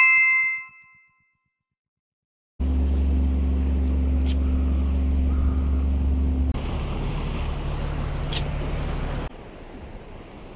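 A bright chime sound effect rings once and fades over about a second. After a short silence, a steady low rumble begins about two and a half seconds in, changing abruptly twice, with a few brief sharp high sounds.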